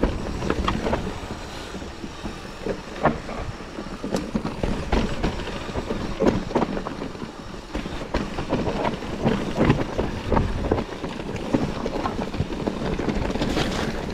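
Mountain bike clattering over rough trail: irregular knocks and rattles from the bike as it hits bumps, over a steady rush of tyre noise.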